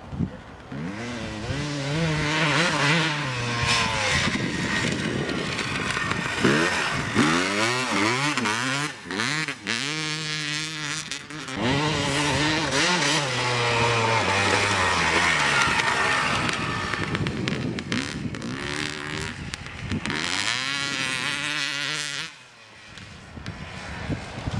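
Suzuki RM 250 single-cylinder two-stroke dirt bike engine, on its stock exhaust, revving hard through the gears. The pitch climbs and drops again and again as it shifts, with a brief lull near the end.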